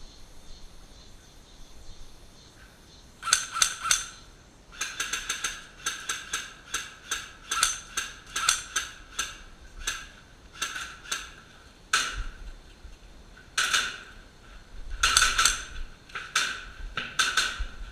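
Airsoft guns firing a long irregular series of sharp shots, two to four a second, in runs with short pauses, starting a few seconds in.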